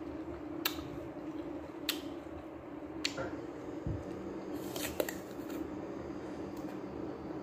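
Crisp snaps of a small knife cutting pieces from a hand-held apple, three about a second apart, then the crunch of a bite into an apple slice about five seconds in. A steady low hum runs underneath.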